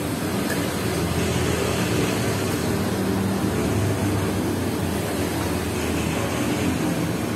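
Steady rumbling background noise with a low hum.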